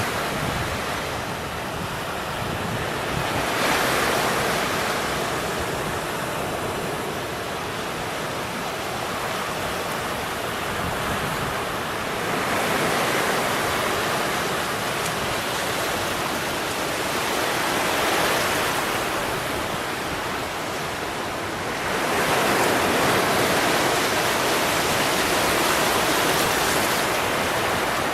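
Steady rushing noise of wind and the flooded Danube's moving water, swelling louder every few seconds as the wind gusts.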